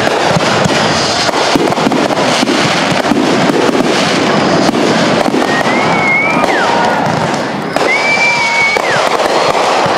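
Fireworks display: dense, continuous crackling and popping of aerial bursts. Two held high tones of about a second each sound in the second half.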